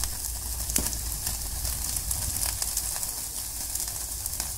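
Marinated chicken pieces sizzling and crackling on a wire grill rack set directly over a gas stove's open flame, with the burner's steady low rumble underneath.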